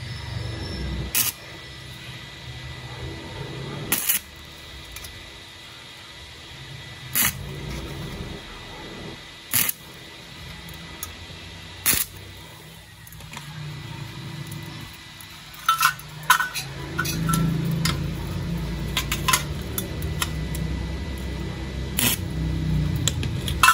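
Stick-welding arc from a DC inverter welder with a 2 mm stainless electrode on 0.7 mm stainless sheet: a sharp crack every few seconds as the arc is struck in brief tacks, then a steadier crackling arc with pops over the last several seconds. At 90 amps the arc burns holes through the thin sheet.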